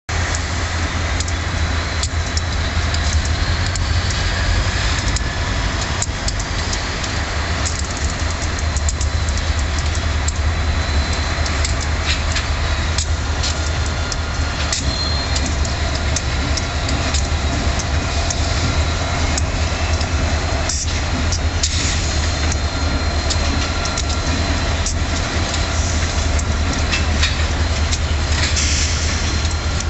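Diesel locomotives, an EMD GP60 among them, rolling slowly past with their engines running as a steady low drone. Wheels click over rail joints throughout, and a thin high wheel squeal wavers in and out.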